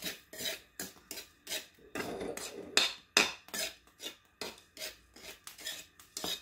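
Metal spatula scraping and stirring dry brown sugar around a steel wok as the sugar starts to melt into syrup. The gritty scrapes come about three times a second, with one longer, louder scrape about two seconds in.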